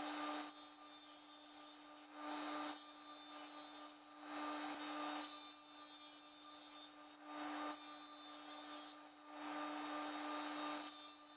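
Bench grinder running with a steady hum while a fillet knife's edge is drawn across its grit-coated paper sharpening wheel, giving a hissing rasp with each stroke. There are about six strokes, each lasting half a second to a second and a half, as the edge is ground to raise a burr.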